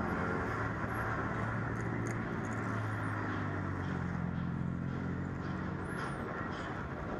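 Diesel locomotive engine running with a low, steady hum as the train creeps along the track, over a constant wash of city noise.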